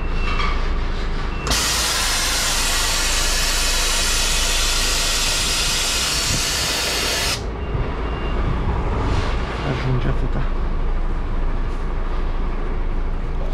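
Truck's idling diesel engine under a loud, steady hiss of compressed air that starts suddenly about a second and a half in and cuts off about six seconds later: air being let out of the trailer's air suspension to lower it to dock height.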